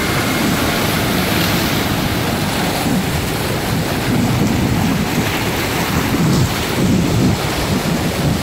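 Sea waves churning and washing close by, a steady rushing noise with irregular low rumbling from wind on the microphone.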